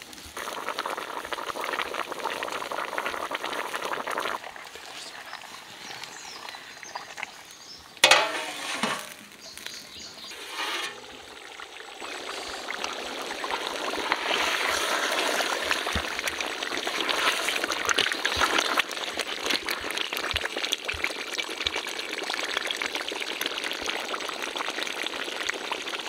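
Mutton curry bubbling and sizzling in a cooking pot, with a brief loud knock about eight seconds in; the bubbling grows louder from about twelve seconds on.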